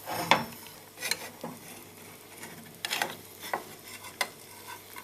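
Spatula scraping and knocking against a frying pan, about five separate strokes, as it works under a frying egg to flip it. A faint sizzle of butter frying runs underneath.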